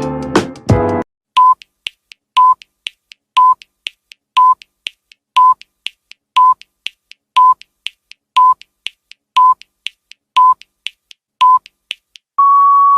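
Short, identical electronic beeps, about one a second and eleven in all, each with a faint tick halfway between, ending in one longer beep at the same pitch: a countdown-timer beep.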